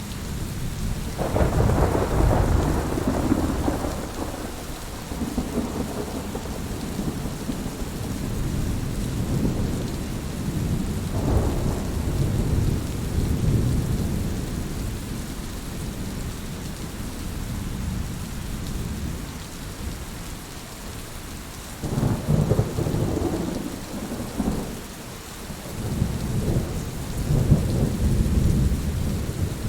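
Heavy rain falling steadily, with rolling thunder rumbling in several long swells, the loudest a few seconds in, around the middle, and twice near the end.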